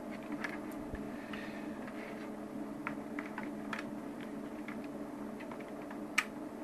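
A steady electrical hum with a few faint clicks, and one sharper click about six seconds in.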